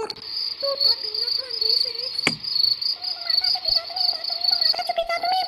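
Crickets chirping steadily in a night ambience, with a faint wavering tone underneath and one quick falling swish about two seconds in.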